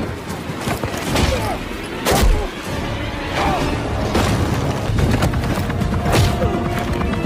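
Action-movie soundtrack: music under repeated booms and impacts, the loudest about two seconds in.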